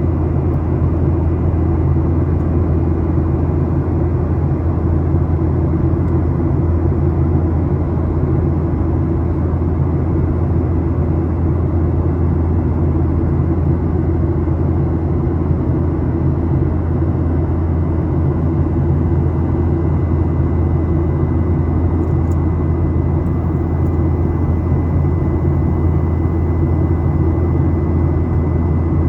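Steady cabin noise of a Boeing 737 airliner in flight: an even, unbroken drone of engines and airflow, heaviest in the low rumble, with a faint steady high tone above it.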